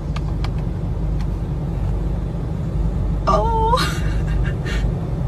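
Steady low rumble of a car idling, heard from inside the cabin. About three seconds in, a brief high-pitched cry slides up and down, followed by a few short vocal sounds.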